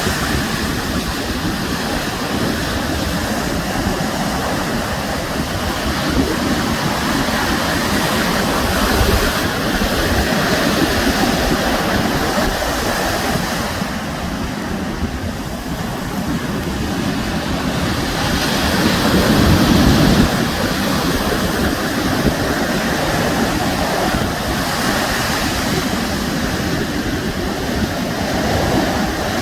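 Sea waves washing onto the shore, a continuous surf noise that swells and ebbs, with the loudest surge about two-thirds of the way through. Wind buffets the microphone with a low rumble.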